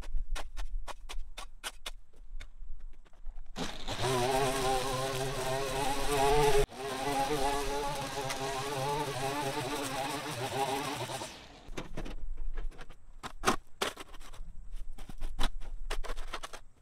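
A small engine runs for about eight seconds, its pitch wavering, with a brief break partway through. Before and after it come rapid sharp clicks.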